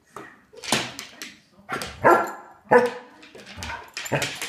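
A dog barking repeatedly in short, sharp barks, irregularly spaced, about one or two a second. It is play barking, a dog goading the other dog into play.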